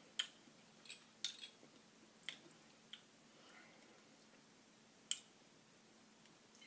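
Faint wet mouth clicks and lip smacks after a swallow of fruit juice: a cluster of them in the first three seconds and one more about five seconds in.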